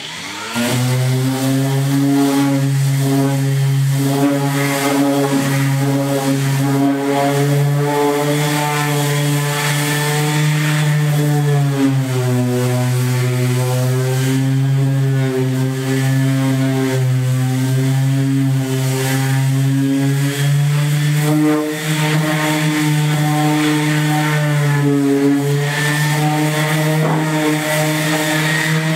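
Corded electric sander starting up and then running steadily while sanding the steel floor of a pickup truck bed, its steady motor hum dipping slightly in pitch now and then.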